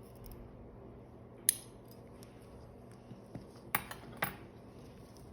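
Metal suturing instruments clicking and clinking as they are handled: one sharp click about 1.5 s in and a quick cluster of three near the end.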